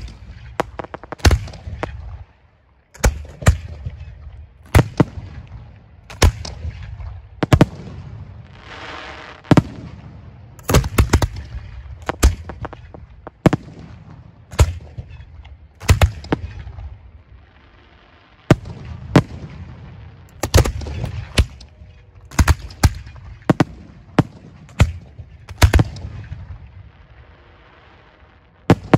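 Professional fireworks display shells firing from mortar tubes: a rapid, irregular run of sharp booms about one a second, with low rumble between them. A short hiss comes about a third of the way in, and there are brief lulls about two-thirds through and near the end.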